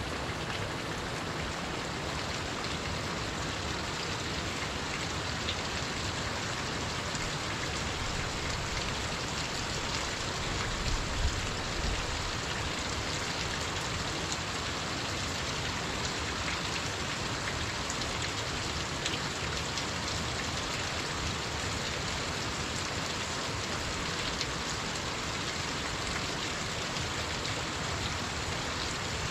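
Waterfall pouring steadily: a continuous, even rush of falling water, with a couple of brief low thumps about ten to twelve seconds in.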